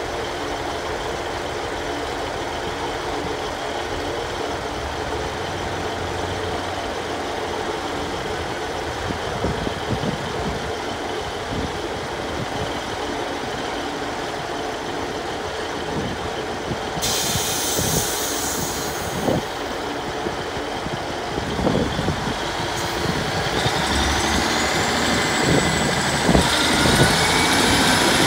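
Great Western Railway diesel multiple unit's underfloor engines running as the train departs. A hiss of air comes about two-thirds of the way in. Near the end a rising whine builds as the train pulls away and picks up speed.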